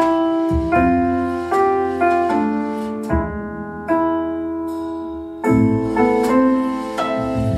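Piano music: chords and deep bass notes struck about every half second to a second, each ringing out and fading.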